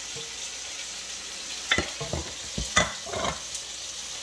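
Beef and onion sizzling in hot oil in a wok, with wooden spatulas knocking and scraping against the pan several times around the middle.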